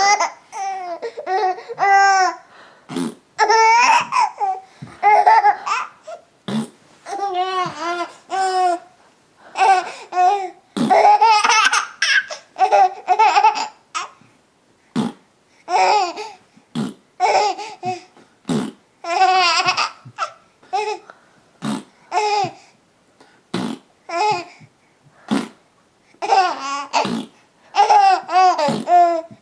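A young child laughing hard in repeated short bursts, again and again, with brief pauses between fits.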